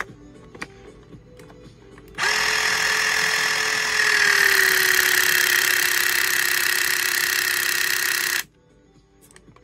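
Milwaukee Force Logic 12-ton cordless hydraulic crimper running its motor and pump for about six seconds as it presses on a force test gauge. The whine drops slightly in pitch as the load builds, then cuts off suddenly.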